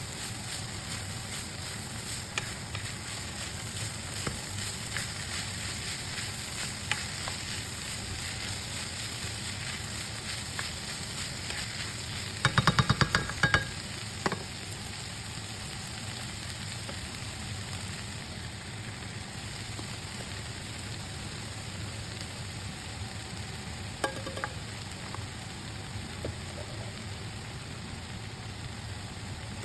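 Ground pork with potatoes and carrots frying in a pan with a steady sizzle. About twelve seconds in, a quick run of loud knocks lasts about a second, with a couple of single knocks later.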